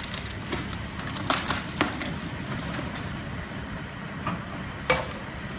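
Demolition machinery's engine running steadily, with several sharp knocks and cracks of debris being broken and moved, the loudest near the end.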